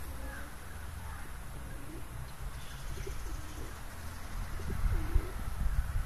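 Feral pigeons cooing: a few low, gliding coos, mostly in the second half, over a steady low rumble.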